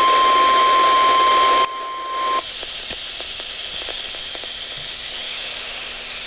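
Weather-radio warning alarm: a single steady high tone near 1,050 Hz drops in level about two seconds in and cuts off soon after. Radio static hiss with faint crackles follows, the alert signal ending before the warning message.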